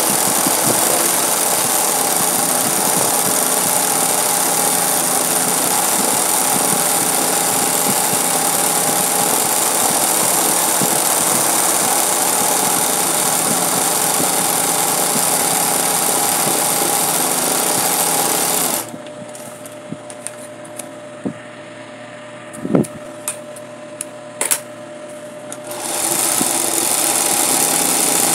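Industrial 20U-type zigzag sewing machine running fast and steadily, stitching satin-stitch machine embroidery. About two-thirds of the way in it stops for several seconds, leaving a faint hum with a few clicks and knocks, then starts sewing again near the end.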